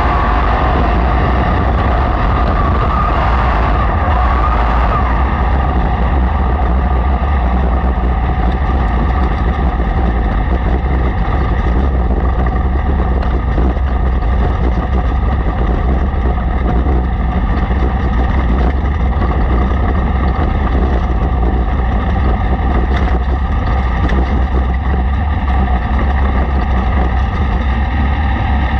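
Racesaver sprint car's 305 cubic-inch V8 engine running hard at racing speed, loud and steady, its pitch wavering up and down in the first few seconds.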